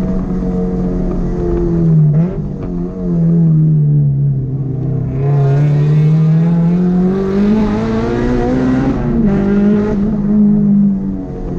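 Car engine revving up and down: its pitch dips about two seconds in, sinks, then climbs steadily for several seconds under hard acceleration, drops briefly, holds, and falls again near the end.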